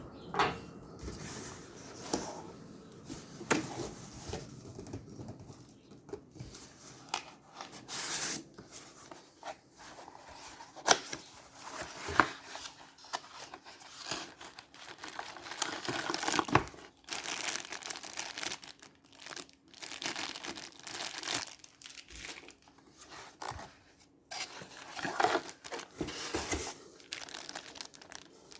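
Speaker packaging being opened: wrapping tearing and crinkling in irregular bursts, with occasional sharp clicks and knocks.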